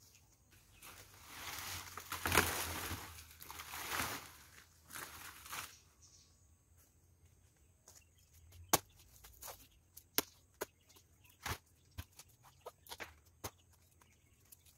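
Rustling of banana leaves and trunk pieces being handled and dragged over grass, loudest about two seconds in, followed by a string of short sharp cracks and knocks as the banana stalks are broken up.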